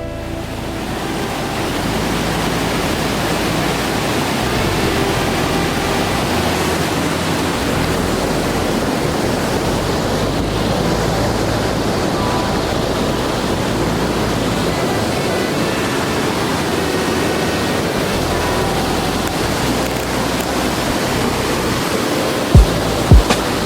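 Steady roar of rushing water from a waterfall or rapids. Near the end come a few sharp low thumps.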